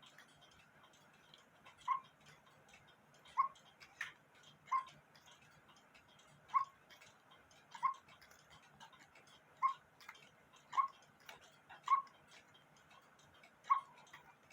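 Quarter-hour cuckoo clock movement ticking, a sharp tick about every second and a half with slightly uneven spacing between beats.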